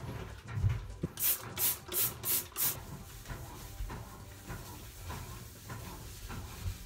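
A trigger spray bottle squirted five times in quick succession into a bathtub, followed by a hand scrubbing the tub's surface with soft rubbing strokes.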